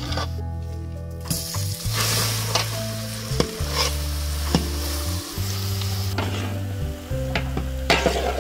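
Spices sizzling in hot oil in a large metal pan, then a mashed-potato filling being stirred and scraped with a long metal spatula, with sharp clicks where the spatula strikes the pan. Low background music plays underneath.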